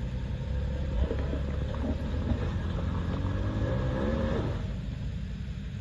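Toyota Tacoma's engine revving under load as the truck crawls up a steep dirt climb, over a low rumble. The pitch rises gradually and then cuts back suddenly about four and a half seconds in.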